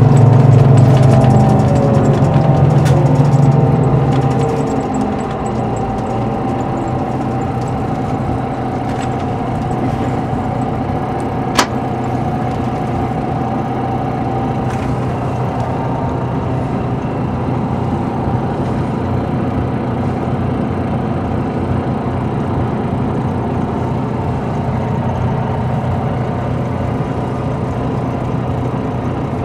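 Engine of a Volvo B9R coach heard from inside the passenger cabin: loud at first with its note falling over the first few seconds as the revs drop, then settling to a steady, quieter drone with road noise. One sharp click about twelve seconds in.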